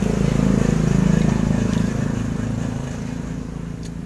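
A motor vehicle's engine running as it passes, a low hum that swells to its loudest about a second in and then slowly fades. A faint click comes near the end.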